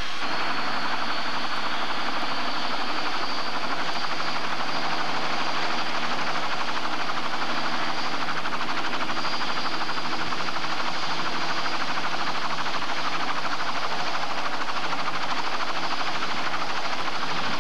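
Bell 206 JetRanger helicopter running on the ground with its rotor turning: a steady turbine whine over dense, even rotor and engine noise.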